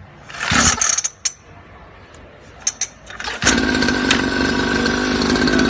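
Small two-stroke mini dirt bike engine being pull-started: a short noisy pull about half a second in, then the engine catches about three and a half seconds in and runs steadily at a fast idle.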